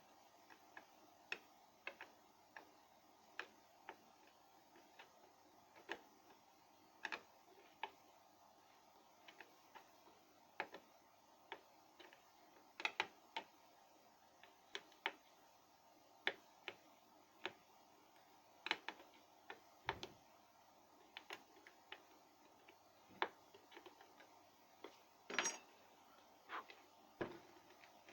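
Irregular light clicks and taps, one or two a second, over faint room tone, with a louder clatter about 25 seconds in: small parts and tools being handled while a kettle is taken apart.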